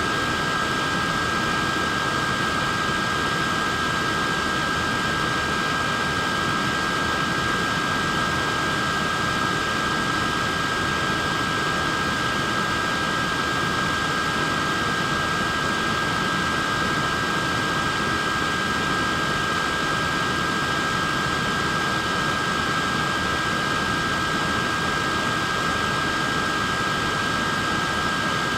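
Small wearable neck fan running steadily: an even rush of air with a constant whine from its motor and blades.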